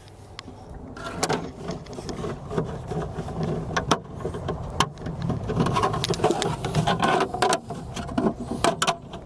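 Irregular clicks, knocks and rattles of a glove box kit's side panel being handled and slotted into its base pan.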